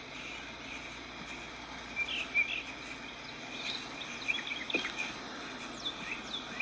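Wild birds chirping and whistling in short, scattered calls, with a few quick downward-sliding notes near the end, over a steady high insect drone.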